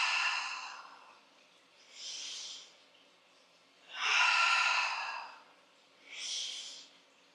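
A person's deep, audible breaths close to the microphone, paced with a slow movement: loud breaths about every four seconds, each with a softer breath between them.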